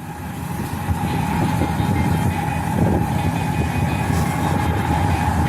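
Steady noise of something moving: a low rumble with a steady whine, fading in during the first second.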